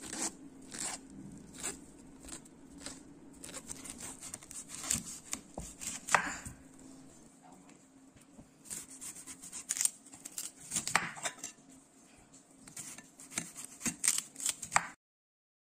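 Kitchen knife cutting fresh corn cobs into chunks on a wooden cutting board: irregular crunches as the blade goes through the cob and knocks of the blade on the board, with a longer crackling cut about six seconds in.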